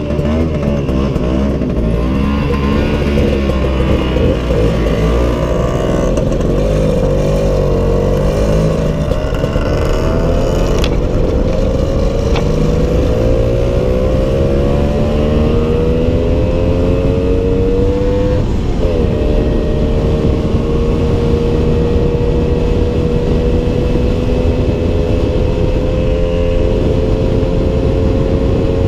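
Motor scooter engine pulling away and accelerating, its pitch rising unevenly for the first two-thirds, dipping briefly, then holding nearly steady at cruising speed. A low wind rumble on the microphone runs underneath.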